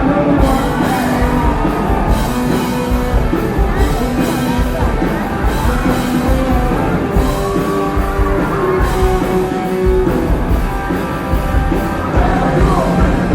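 Rock band playing live, with a singer's voice held over guitar and a steady drum beat.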